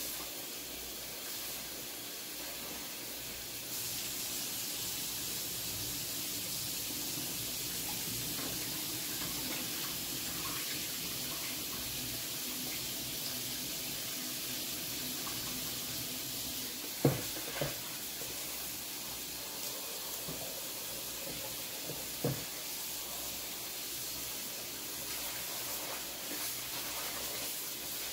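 Kitchen tap running steadily into a sink as food is rinsed in cold water, getting a little stronger a few seconds in. Two quick knocks come past the middle, and another follows a few seconds later.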